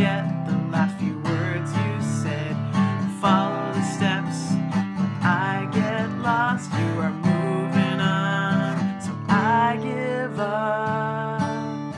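A woman singing in phrases, with vibrato, while strumming an acoustic guitar.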